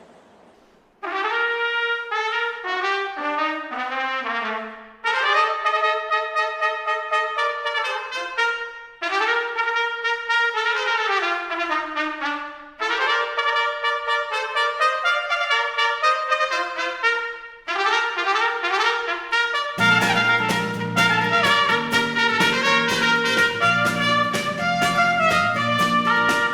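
Brass ensemble playing, led by trumpet: melodic phrases separated by short breaks, joined about two-thirds of the way through by low bass instruments as the full group comes in.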